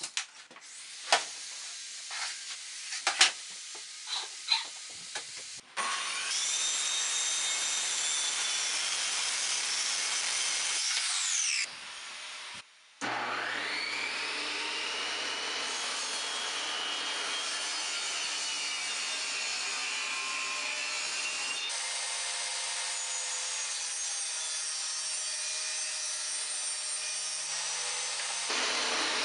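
A few sharp knocks and taps from handling a thin plywood sheet, then a power saw running steadily and winding down. Then a Hitachi benchtop table saw spins up with a rising whine and runs steadily while thin 3/16-inch plywood panels are cut on it.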